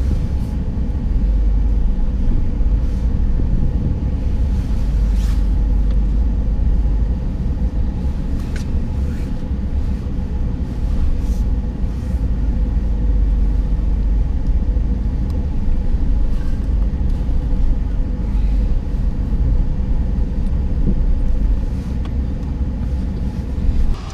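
Pickup truck's engine idling, heard from inside the cab as a steady low rumble.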